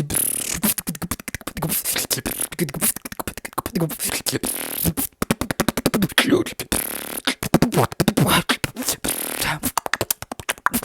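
A man beatboxing: rapid mouth clicks and hisses, with a few short hummed or sung sweeps in between.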